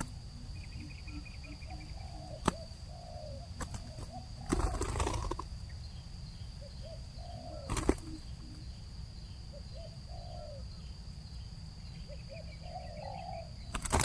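Spotted doves cooing: a long series of short, low coos. A brief rustling burst comes about four and a half seconds in, and a couple of sharp clicks, over a steady high tone.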